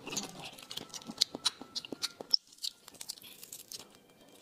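Fingers peeling the shell off a raw marinated mantis shrimp: a run of short wet clicks and crackles as the shell breaks and pulls away from the flesh, thinning out after about two seconds.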